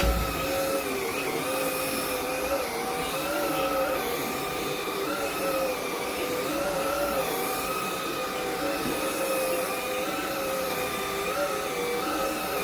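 Shark IX141 cordless stick vacuum running steadily, its motor whine wavering a little in pitch every second or so as it works, with a brief low bump at the very start.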